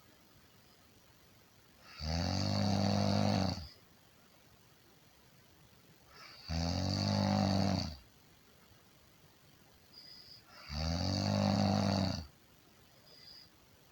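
A person snoring: three long, rasping snores about every four and a half seconds, with quiet gaps between them. A faint short whistle comes twice in the later gaps.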